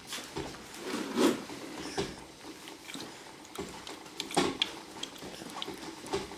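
A baby drinking milk from a plastic feeding bottle: sucking and swallowing, with small clicks and taps as the bottle is handled and taken from the mouth. The loudest of these come about a second in and again about four seconds in.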